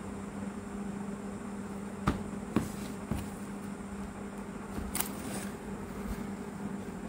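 Cardboard box being handled and its lid lifted off, with a few sharp taps and knocks about two seconds in and again around five seconds, over a steady low hum.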